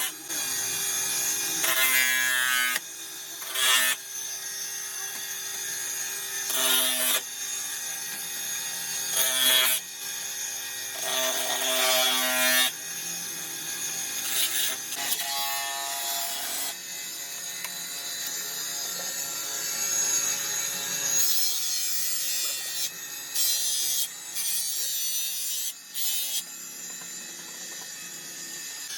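Hand tools working a cracked plastic car headlight: continuous scraping and rubbing, with short whining tones every few seconds in the first half.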